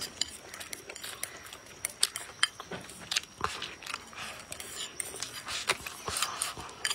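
Chopsticks clicking and scraping against a ceramic rice bowl as rice is shovelled into the mouth, with chewing sounds. The clicks are sharp and irregular.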